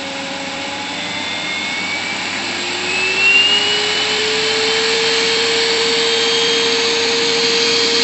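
Sharp canister vacuum cleaner running, its motor whine rising in pitch and growing louder from about two and a half seconds in as the suction slider is pushed up from its lowest setting, then holding steady at the higher suction. It is sucking the air out of a plastic bag to vacuum-pack a pillow.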